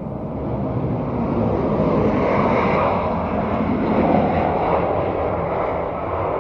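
Airliner's jet engines heard as the plane passes close by, the noise swelling to a peak two to four seconds in and then easing off.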